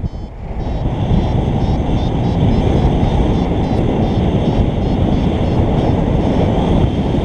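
Wind rushing over the microphone during a paragliding flight, a loud steady buffeting that dips briefly at the start and then builds again.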